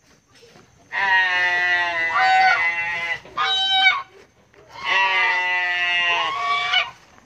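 Domestic goose calling loudly: three long, drawn-out honks, the first about a second in, a short one in the middle and a long one near the end.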